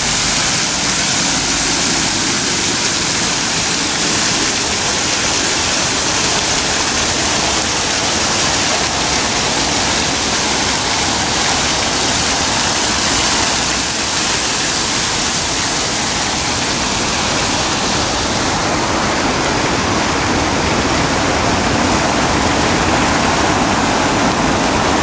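Tiered fountain splashing steadily, its water jets and overflowing bowls falling into the basin.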